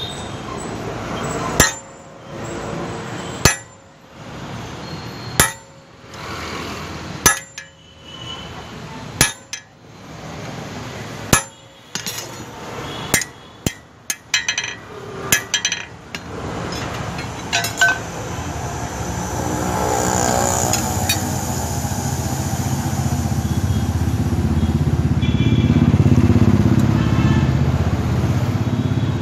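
Hammer blows on steel at the anvil while forging tongs from square bar stock, each a sharp ringing strike. They come about two seconds apart, then quicker in small clusters. In the second half a steady low rumbling noise builds up and is loudest near the end.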